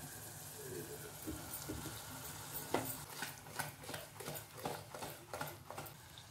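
Marinated chicken sizzling as it goes into a hot aluminium pot of onion-tomato masala. From about three seconds in come short metal knocks and scrapes, a few a second, as the pot is tossed on the gas burner to mix it.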